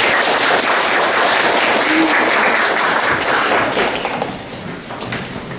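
Audience applauding, dense clapping that starts at once and dies away about a second before the end.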